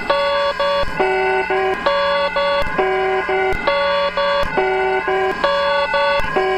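Emergency alert (EAS) alarm tone: a synthesized, buzzy pattern of stepped beeps at a few different pitches, the same short figure repeating a little faster than once a second.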